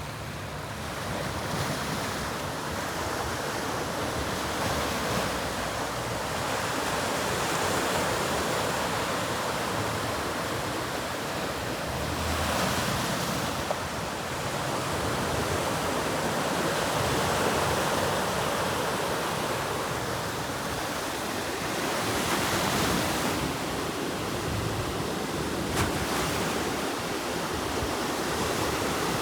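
Ocean surf: waves breaking and washing ashore in a steady rush that swells and eases every few seconds.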